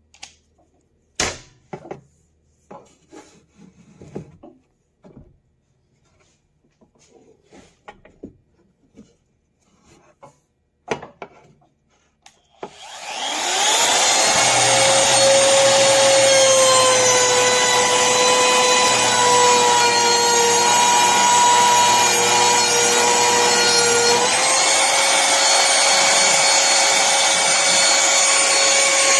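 Scattered clicks and knocks of the tool being handled, then an AVID Power 1.25 HP compact wood router spins up about halfway through and runs at high speed with a steady high whine. Its pitch sags slightly for about ten seconds, as the motor does while cutting wood, then picks back up near the end.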